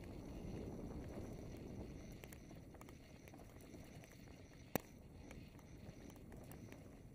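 Mountain bike rolling along a dirt singletrack: a low, steady rumble of tyres on the trail with small ticks and rattles, and one sharp click about two-thirds of the way through.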